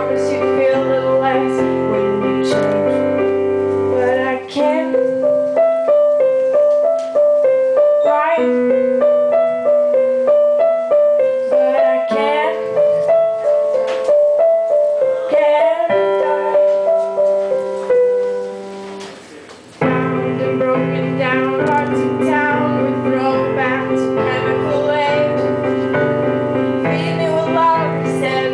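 Music: a piano-led passage of a song, with a quick repeating keyboard figure from about five seconds in. It thins out and dips in level for a moment past the middle, then the fuller accompaniment comes back.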